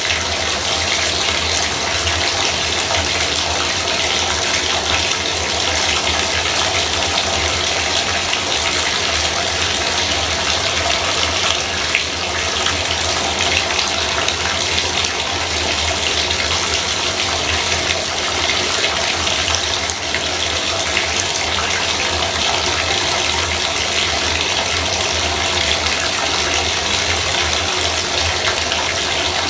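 Bathtub faucet running, water pouring in a steady, unbroken stream.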